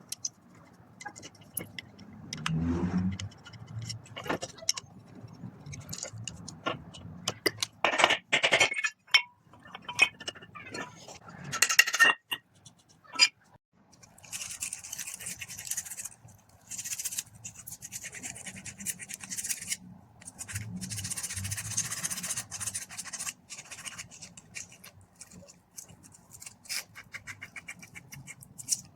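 Metal tools and parts clinking, knocking and scraping: scattered sharp clinks throughout, with several stretches of steady scraping, each a second or more, in the second half.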